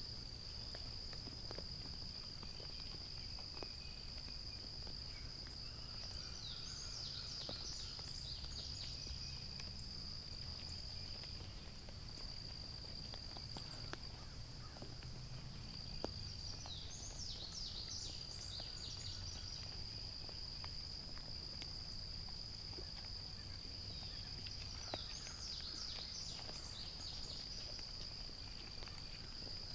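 A steady, unbroken high-pitched insect chorus, with a songbird singing three short bouts of quick sweeping notes, and a low steady rumble underneath.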